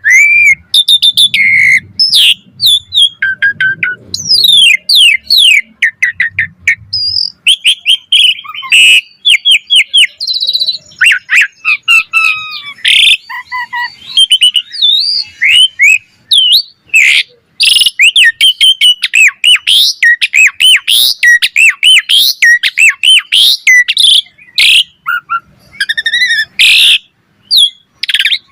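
Pied starling (jalak suren) singing without pause: a fast, varied stream of loud whistles, rising and falling slurred notes, harsh squawks and sharp clicks. This is the full, richly varied song that keepers call 'gacor full isian'.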